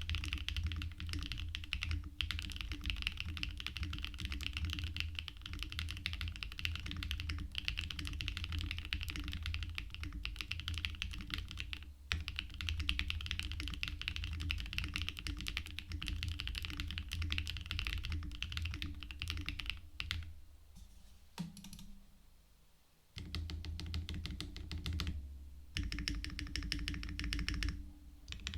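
Fast, continuous typing on a Mode Sonnet mechanical keyboard with lightly lubed Gateron Raw switches, POM plate and stack mount. The keystrokes come in a rapid stream that stops for about three seconds two-thirds of the way through, then starts again.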